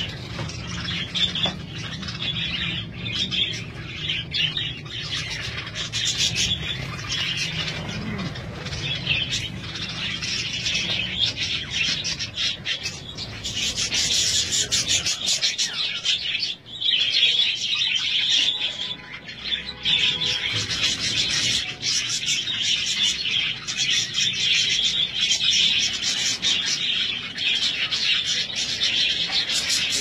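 A flock of budgerigars chattering and chirping, many birds at once in a dense continuous warble, growing louder about halfway through. A low rumble runs under the first half.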